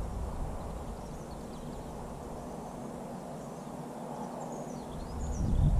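Wind buffeting the microphone, easing off after the start and gusting up again near the end, with a few faint high chirps of small birds.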